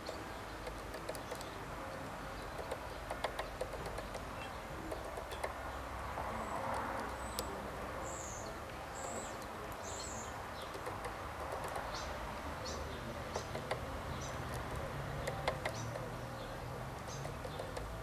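Irregular sharp taps of a Eurasian blue tit pecking at seed on a wooden feeder tray, with a bird giving four short high-pitched calls about halfway through.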